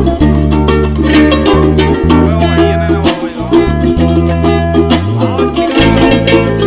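Background music with a steady beat and a heavy bass line; the bass slides up and back down about five seconds in.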